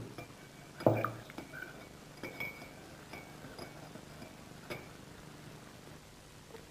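Coffee cups and a spoon clinking lightly, a few scattered clinks over several seconds, with a short voice sound about a second in.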